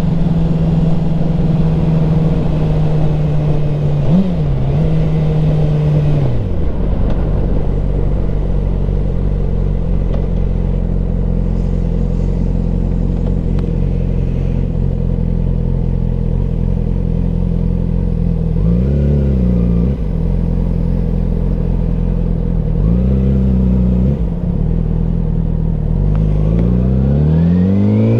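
2007 Yamaha R6's 600 cc inline-four engine at highway speed. It runs at steady revs, blips briefly, then drops in pitch as the throttle rolls off about six seconds in. Two short dips and rises come later, and near the end it revs up hard as the bike accelerates.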